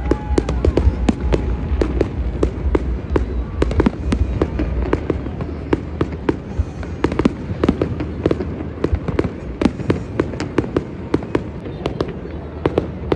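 Fireworks going off: many sharp bangs and crackling pops, several a second and overlapping, over a steady low rumble.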